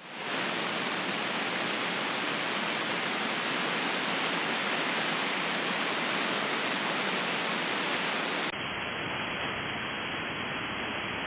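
Steady hiss of open radio static from a receiver with no signal on the channel. About eight and a half seconds in, the hiss abruptly turns duller and narrower, as the radio is switched from AM to its narrower upper-sideband filter.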